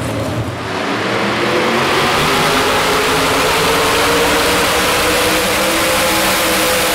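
Small-block V8 of a 4x4 pulling truck running hard at high revs under load as it drags the weight sled. The engine comes in loud about a second in and holds a steady pitch that sags slightly near the end.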